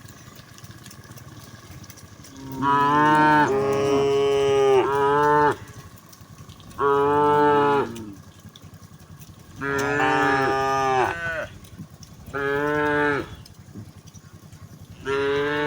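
Cattle mooing: five loud, deep moos, the first a long drawn-out call of about three seconds, the others about a second each, a second or two apart.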